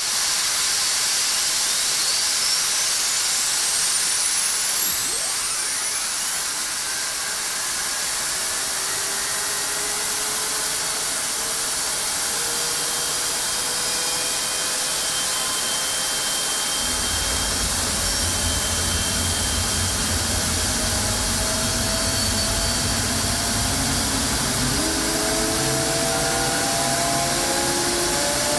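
General Electric F110-GE-100 turbofan jet engine running on a test stand, a loud steady hiss with whining tones sweeping upward. About 17 seconds in, a deep rumble joins and the whine keeps climbing as the engine spools up.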